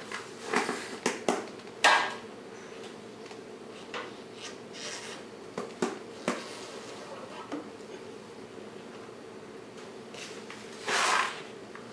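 Hand work on metal parts and tools: scattered clicks and knocks with a few short rasping scrapes, the loudest a half-second scrape near the end, over a faint steady hum.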